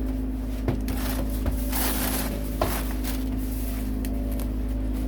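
A steady low machine hum runs throughout. Over it come a few short knocks, about a second in, at one and a half seconds and a sharper one past two and a half seconds, and a brief rustling hiss around two seconds.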